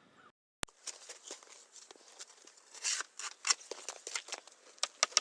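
Irregular crunching of packed snow, a quick run of short crisp crunches, loudest around the middle.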